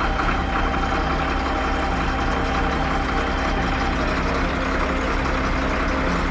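A heavy vehicle's engine running steadily at idle, with a deep rumble.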